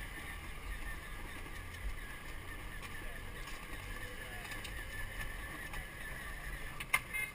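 Battery-powered Power Wheels ride-on toy car driving over brick paving: a low, steady rumble of its plastic wheels and motor, with a single click near the end.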